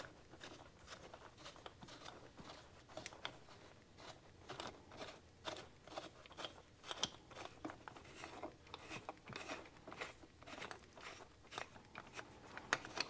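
Faint, irregular small clicks and creaks of a wrist pin puller turned by hand, its threaded rod pressing the piston pin out of a Kawasaki F7 175 piston. The pin is not tight and moves under hand pressure alone, without a wrench.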